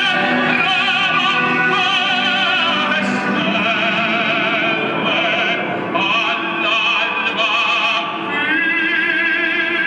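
Operatic singing with strong vibrato over orchestral music.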